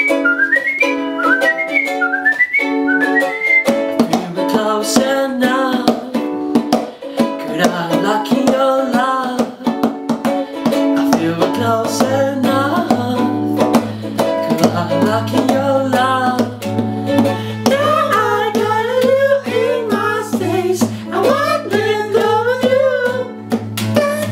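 Ukulele and acoustic guitar playing an instrumental passage, with a whistled melody of short rising notes at first and percussive taps throughout. About halfway in, a low held note joins, and a wavering melody line carries on above the strings.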